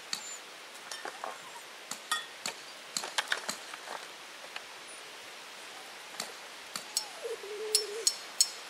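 Scattered sharp clicks and clinks of camp gear being handled and set down, over a steady background hiss.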